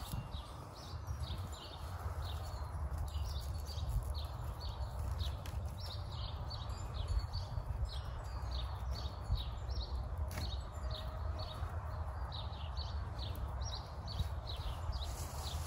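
A bird giving a long run of short, high, falling chirps, about three a second, over a steady low rumble.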